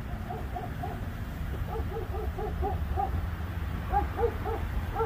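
A police dog shut inside a patrol SUV barking in quick runs of short barks, about three a second, muffled by the vehicle's body.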